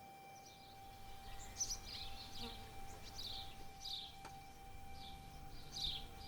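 Birds chirping faintly: a scattered series of short high chirps, each falling in pitch, over a faint steady hum.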